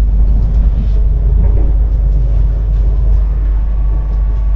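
Bangkok Airport Rail Link train running, heard from inside the carriage as a loud, steady low rumble.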